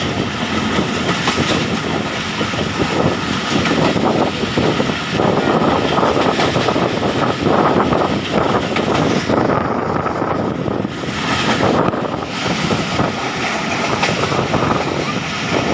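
Millat Express passenger train running along the track: a steady, loud rumble and rattle of the coaches' wheels and running gear, without a break.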